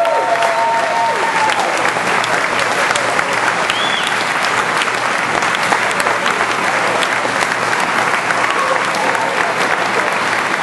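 Crowd clapping steadily, a dense patter of many hands, with a few held cheers over the applause in the first second or so.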